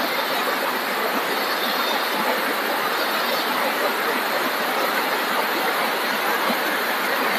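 Creek water rushing steadily, a dense, even, unbroken noise.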